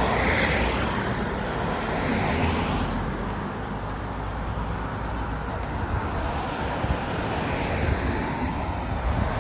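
Road traffic: cars passing along the street, the tyre and engine noise swelling and fading a few times.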